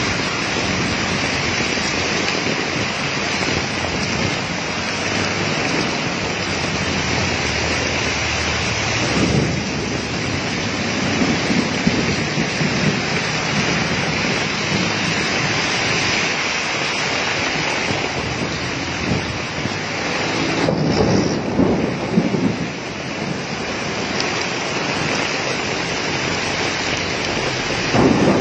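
Heavy rain of a hailstorm pouring down steadily, a dense hiss. Louder low rumbles swell up twice, about ten and about twenty-one seconds in.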